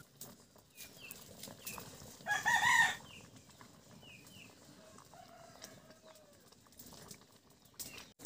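Chicken calling: one short, loud call about two seconds in, with a few faint short chirps before and after it.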